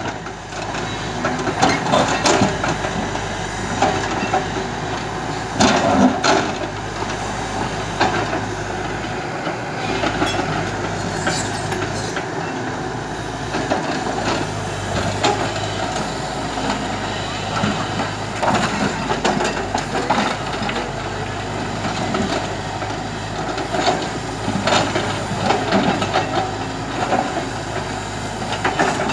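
JCB tracked excavator's diesel engine running steadily while its bucket works through riverbed stones and gravel, with several sharp knocks along the way.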